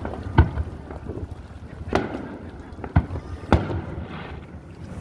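Aerial fireworks bursting over the water: four sharp booms about a second apart, over a steady low rumble of the show, with wind on the microphone.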